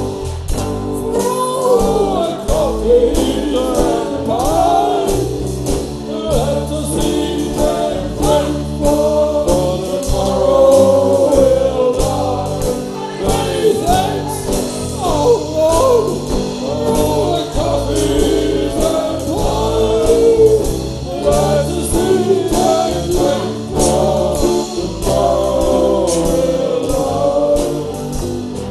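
A live band playing: men singing together over a drum kit, acoustic guitar and electric guitar.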